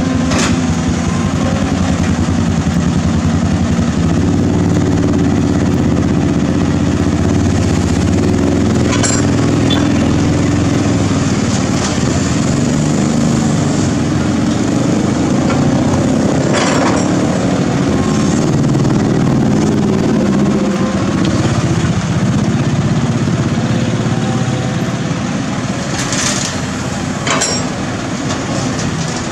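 Caterpillar 320D hydraulic excavator's six-cylinder diesel engine working under hydraulic load as it digs and swings, a steady loud drone that rises and falls a little. A few sharp clanks of the bucket and rubble come about 9 s in, around 17 s and twice near the end.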